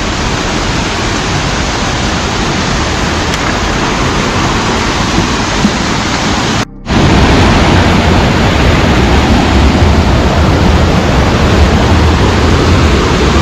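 Henderson Falls, a waterfall, pouring water in a loud, steady rush. About halfway through it cuts out for a moment, then comes back louder and deeper.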